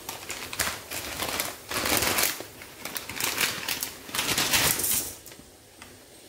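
Plastic packet of dry pearl millet noodles crinkling as it is handled, in irregular bursts that die away about five seconds in.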